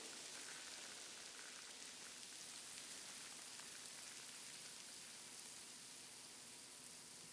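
Faint steady hiss of a thin stream of fine white grains pouring from above onto a stage floor.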